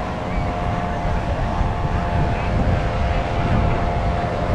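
A steady engine drone holding one pitch, over a dense low rumble.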